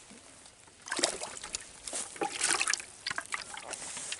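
A crappie dropped into a plastic bucket of water: a splash about a second in, then a few shorter splashes and sloshes as the water and fish settle.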